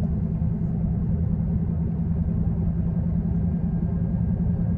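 Steady low rumble of a Dodge Hellcat Redeye's supercharged 6.2-litre Hemi V8 and road noise, heard inside the cabin while cruising at an even pace.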